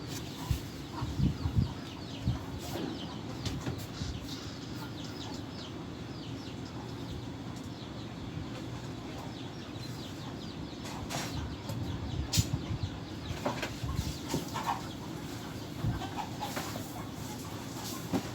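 Chickens clucking in the background, with scattered knocks and rustles throughout.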